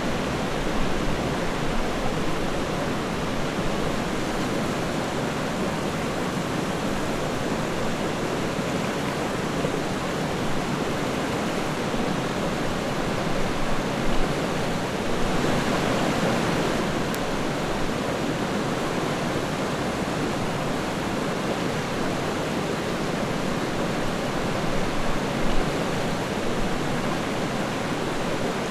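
River water flowing steadily in an even rushing wash, with a few brief louder splashes now and then.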